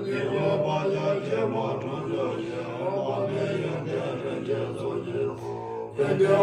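Tibetan Buddhist monks chanting a prayer recitation together in a steady, continuous drone. The chant eases slightly and then comes back louder near the end.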